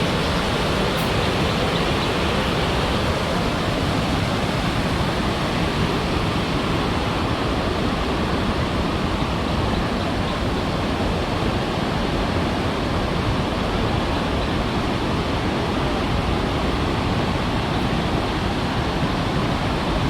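Steady, unbroken rush of Victoria Falls' falling water and spray, heavy in the low end.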